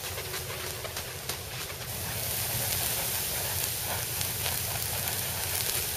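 Burning steel wool crackling and sizzling, a dense run of fine crackles over a steady hiss that grows stronger about two seconds in.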